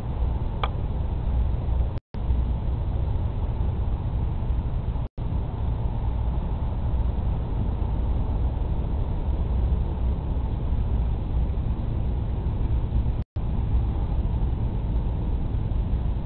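Steady low rumble of wind buffeting an outdoor webcam microphone, with a faint steady hum above it. The audio cuts out completely for a split second three times.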